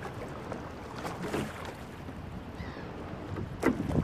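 Single racing scull being rowed: water moving along the hull and oars working, with a brief stroke sound about a second in and a louder one near the end.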